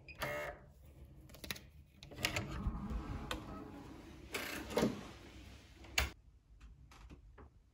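Key-card door lock unlocking, with a brief pitched sound from the lock at the start, then the handle and latch clicking and knocking as the door is opened; a sharp click about six seconds in.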